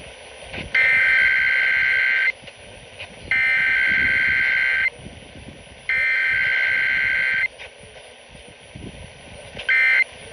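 Emergency Alert System SAME header tones heard through an AM radio: three harsh, buzzing bursts of digital data tones, each about a second and a half long with a second's gap between them. Near the end a much shorter burst of the same tones begins.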